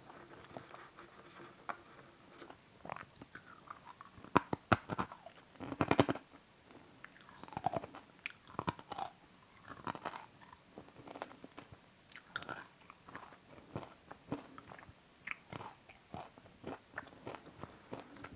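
A person chewing crunchy food close to the microphone, with a run of loud, sharp crunches about four to six seconds in, then softer, irregular crunching and mouth noises.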